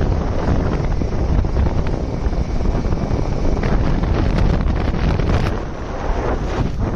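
Wind buffeting the microphone of a moving motorcycle: a loud, steady rushing rumble, easing slightly for a moment near the end.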